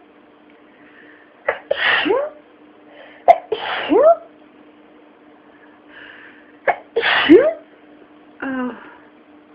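A person sneezing three times, a couple of seconds apart, each sneeze a sharp loud burst ending in a falling voiced tone, with a faint breath drawn in before each. A short voiced sound follows near the end.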